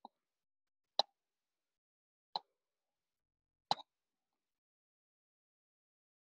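Footsteps on a leaf-strewn woodland path: four short, sharp steps, a little over a second apart, stopping after about four seconds.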